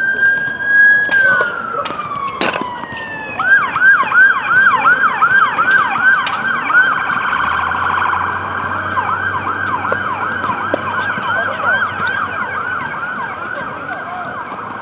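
Emergency vehicle siren: a held tone that falls in pitch, then a fast yelp of rising-and-falling sweeps, about three a second. A single sharp knock about two and a half seconds in.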